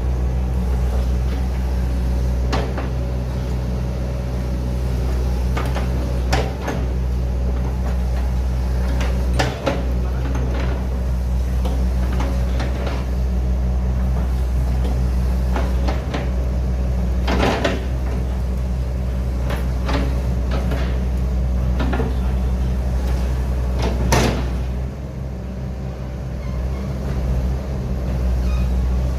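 Hitachi ZX110 excavator's diesel engine running steadily, with a knock or clank every few seconds.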